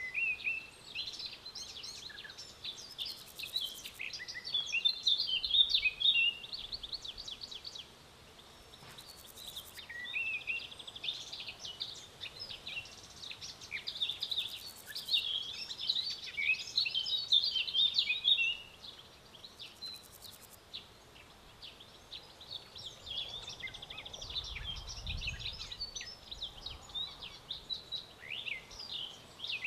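Songbirds chirping in quick, rising and falling notes, busy in two long stretches and sparser near the end.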